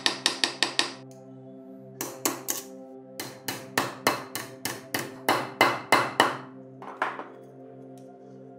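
Steel hammer striking a rusty steel wire handle on the anvil of a bench vise, hammering the bent handle straight, in several runs of quick sharp blows with short pauses between. Ambient background music plays underneath.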